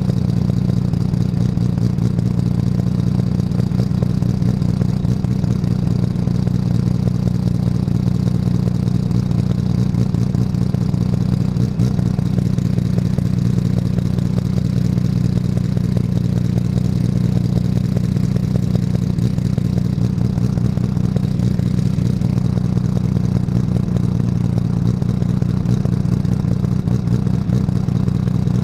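Race car engine running hard and steadily, with a constant deep drone and a rattle over it.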